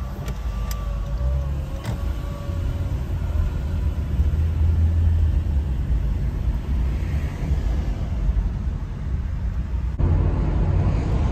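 Car driving on city streets, heard from inside the cabin: a steady low road and tyre rumble.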